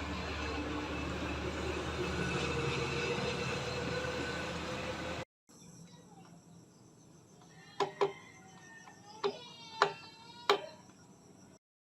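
Steady noisy background for about five seconds; then, after an abrupt cut, five sharp clicks of hard objects knocking together, each with a brief ringing tail.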